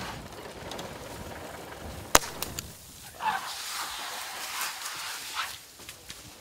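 A single sharp crack of a tranquilliser dart rifle being fired at a snared young elephant, followed by a few seconds of hissing, crackling noise.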